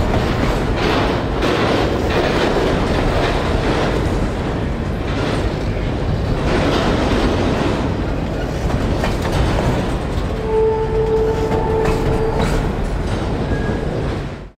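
Freight train of autorack cars rolling past at close range: a steady rumble of wheels on rail with repeated clicks over the rail joints. About ten seconds in, a high squeal holds for about two seconds, and the sound cuts off suddenly at the end.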